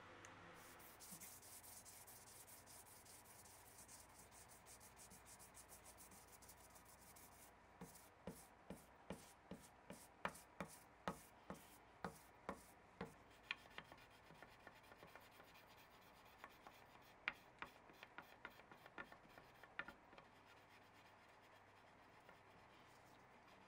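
Sanding block rubbing back and forth over the freshly lacquered neck of a 1970 Fender Jazz Bass, wet sanding the finish. It is faint: short strokes about two or three a second from around eight seconds in, becoming more irregular, then stopping near the end.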